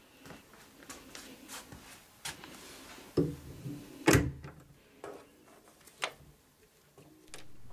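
Light handling clicks and knocks from a hand touching a plush keychain with a beaded strap hanging on a door's lever handle, with camera handling noise. The loudest is a single sharp knock about four seconds in.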